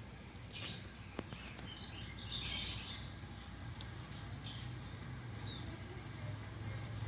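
Small birds chirping now and then in short high calls, over a faint low hum.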